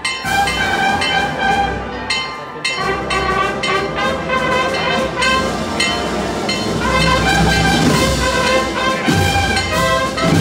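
Wind band of brass and woodwinds playing a processional march behind the paso, with held brass chords.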